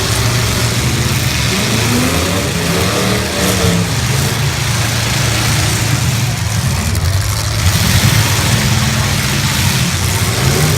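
Full-size stock cars' engines running and revving in a demolition derby, several engines together, their pitch rising and falling as the drivers hit the throttle.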